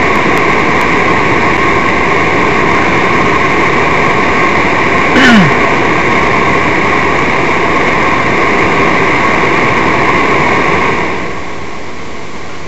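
Steady running noise inside a stationary car with its engine idling, with a short falling squeak about five seconds in; the noise drops noticeably in level about eleven seconds in.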